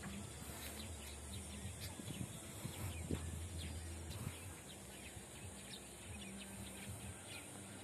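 Open-field ambience: many short bird chirps scattered through, over a steady high hiss, with a faint low hum in the first half.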